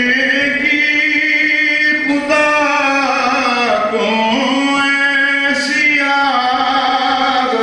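A man chanting Urdu verse in a slow, sung recitation, holding long notes that glide up and down in pitch, with a dip and rise about four seconds in.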